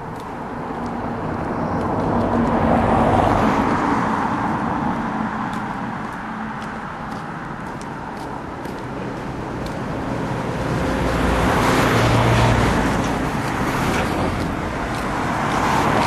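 Road traffic: motor vehicles passing on a two-lane road, one about three seconds in and another around twelve seconds, each rising and fading away as the tyre noise and engine hum go by. A further vehicle comes up near the end.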